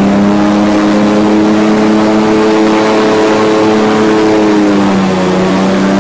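Airboat engine and propeller running, a steady drone whose pitch dips slightly near the end and then picks back up.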